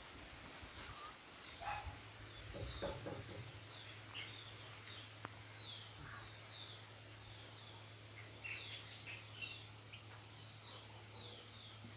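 Birds chirping in the background: many short, high notes that fall in pitch, repeated throughout. A faint steady low hum starts about a second and a half in, with a few soft handling noises around two to three seconds in.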